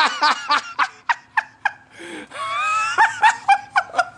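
A man laughing: a quick run of short bursts, then a few longer, higher-pitched laughs about three seconds in.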